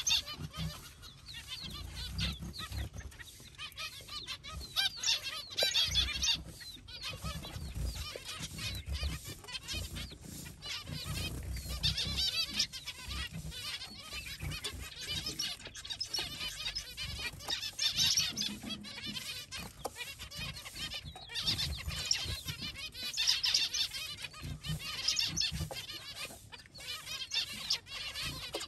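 Several baby chicks peeping, their high cheeps coming in clusters every few seconds. A low rumble comes and goes underneath.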